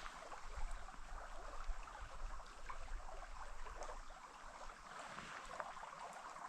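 Steady, fairly faint rush of flowing creek water, with a low wind rumble on the microphone and a few small ticks.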